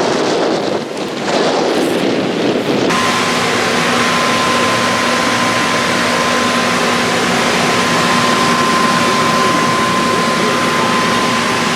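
Rushing air inside an inflated parade balloon whose blower pumps air in continuously. It is gusty at first, then from about three seconds in it becomes a steady loud rush with a constant hum.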